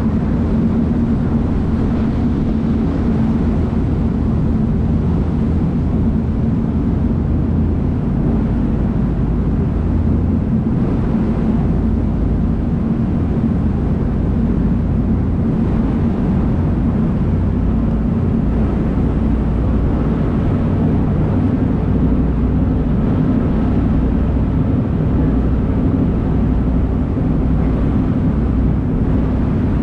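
A small harbour boat's engine running steadily under way, a constant low drone, with water rushing in the churning wake.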